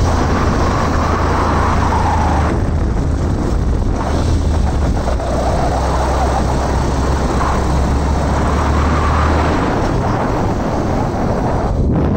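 Motorcycle engine running at a steady road speed, with wind rushing over the microphone. The low engine hum drops away about nine and a half seconds in while the wind noise carries on.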